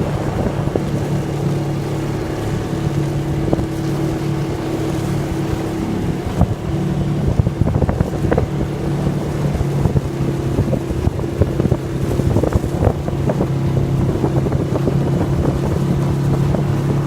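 ATV engine running steadily under way, an even hum with scattered short knocks and wind buffeting the microphone.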